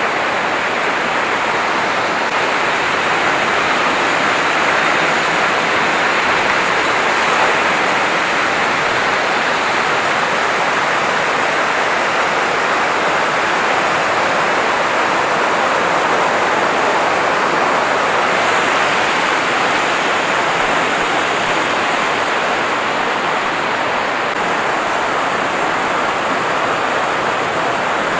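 A small rocky stream cascading over rock, giving a steady, unbroken rush of water.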